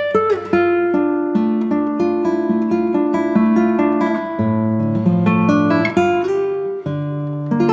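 Background music: acoustic guitar plucking a melody over held chords.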